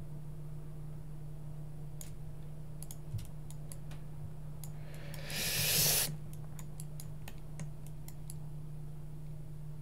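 Scattered computer mouse clicks over a steady low electrical hum, with a short hiss lasting about a second midway.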